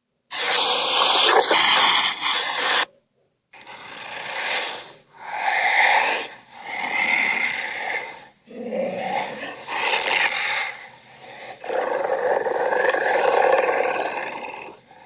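Creature sound effects for an imaginary dinosaur-like beast: a string of about six rasping growls and roars, each one to three seconds long, with short silent gaps between them.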